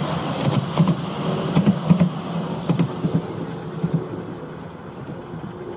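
Miniature railway train running on its track: a steady low rumble with irregular sharp clicks and knocks from the wheels and rails. It eases off and gets quieter after about three and a half seconds.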